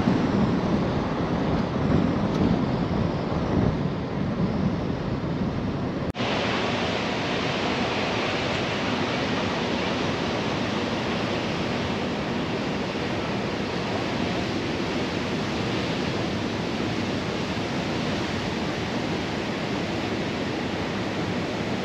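Wind buffeting the microphone with a gusty low rumble, then after an abrupt cut about six seconds in, a steady rush of wind and surf.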